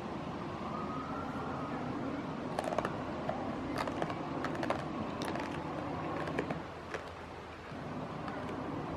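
Steady outdoor background noise, like distant road traffic, with a scatter of small sharp clicks and ticks through the middle.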